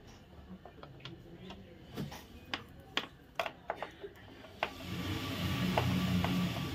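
Scattered clicks and light knocks from hands handling a plastic room-heater housing. A little before the end, about two seconds of louder rubbing and scraping against the casing.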